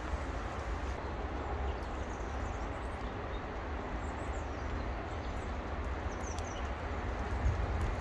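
Steady outdoor garden background: a low rumble with an even hiss over it, and a few faint, short bird chirps high up in the middle.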